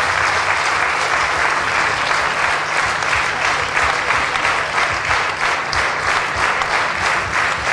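Audience applause: many hands clapping at a steady, even level.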